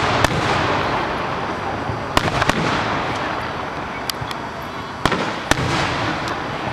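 Aerial fireworks bursting: sharp bangs, several in quick pairs, each followed by a long hissing wash of noise from the shells.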